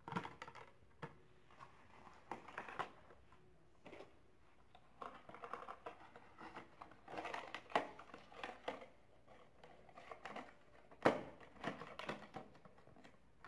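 Quiet plastic handling noise from a Hot Wheels blister card and a clear hard-plastic protector case being turned and slid apart: irregular crinkles and small clicks, with one sharper click about eleven seconds in.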